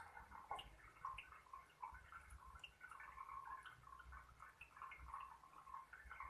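Faint, scattered short chirps from lovebirds, several a second, over a low hum.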